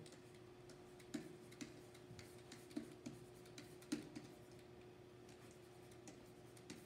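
Stylus pen writing on an interactive whiteboard: faint, irregular taps and scratches as each letter is drawn, over a low steady hum.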